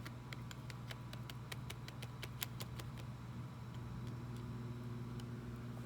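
Small plastic spoon clicking and tapping against a plastic tray while stirring a Popin' Cookin' candy mix: light irregular ticks, several a second at first and fewer after about three seconds, over a steady low hum.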